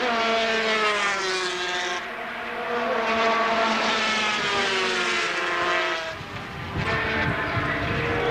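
250cc two-stroke Grand Prix racing motorcycle engines at high revs, going past at speed. The pitch falls away, climbs again and falls once more, with a short dip about six seconds in.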